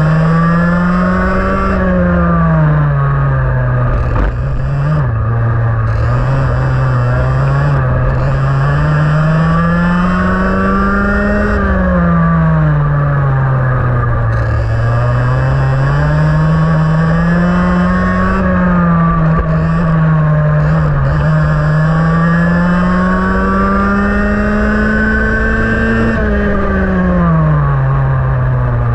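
IAME X30 125cc two-stroke kart engine at racing speed, its note climbing steadily down each straight and falling away quickly under braking for the corners, about five times over.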